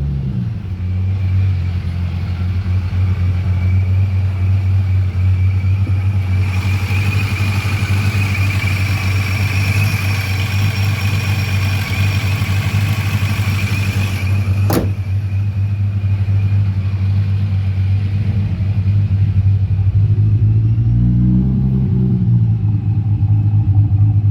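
Supercharged, cammed 3.8-litre V6 of a Holden VX Commodore fitted with a Vortech supercharger, catching as it starts and then idling steadily, with a thin high whine above the idle. A hiss joins in after about six seconds and stops with a sharp click near fifteen seconds, and the revs rise briefly about twenty-one seconds in.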